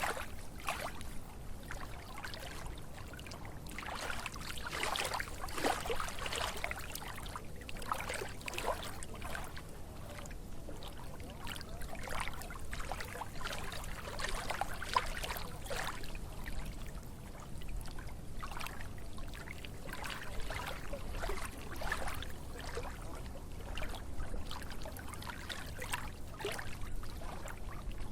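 Running water trickling and splashing without a break, with many small irregular splashes and a low rumble beneath them.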